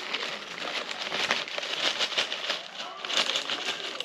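Plastic snack bag crinkling and rustling as it is handled and opened, in irregular bursts that are loudest about a second in and again about three seconds in.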